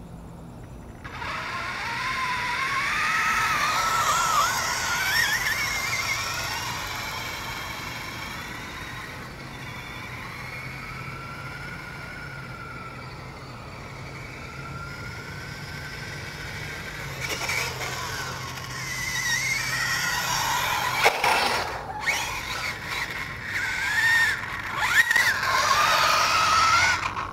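Vaterra Twin Hammers electric RC rock racer driving. Its motor and gears make a whine that climbs in pitch as it speeds away, fades, then comes back louder, the pitch swinging up and down with the throttle as it runs close by. A sharp knock comes about two-thirds of the way through.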